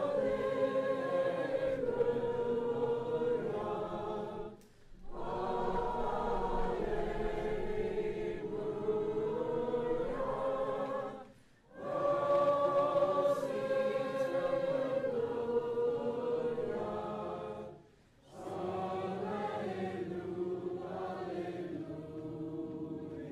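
A choir singing a slow melody in four long phrases of about five to six seconds each, with short breaks between them. The first and third phrases open on the same held note.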